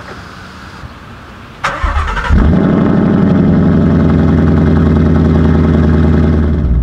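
Ford Mustang GT's V8 starting: a short crank about one and a half seconds in, then the engine catches and settles into a loud, steady idle at the tailpipe.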